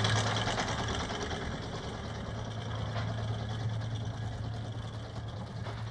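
Electric anchor windlass paying out chain, a steady low motor hum that fades over the first couple of seconds, under wind and water noise.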